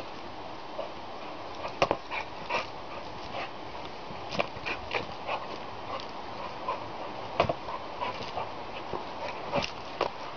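Pit bull leaping at, biting and tugging a hanging plastic fishing buoy: scattered sharp knocks and thumps of the dog's jaws and body hitting the buoy and its feet landing, with brief sounds from the dog in between.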